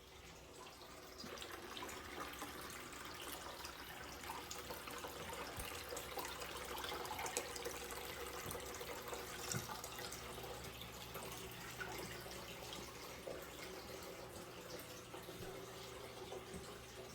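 Small indoor waterfall fountain running: water steadily trickling and splashing over the rocks into its basin, with scattered small drips.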